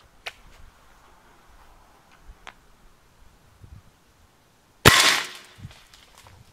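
A single shot from a Benjamin Bulldog .357 air rifle about five seconds in: one sharp report with a short decaying tail. A few faint clicks of handling come before it.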